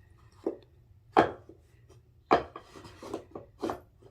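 Thick wooden puzzle pieces knocking and scraping against a wooden puzzle board as a toddler tries to fit them into their cut-outs: several short knocks and rubs, the loudest about a second in and just after two seconds.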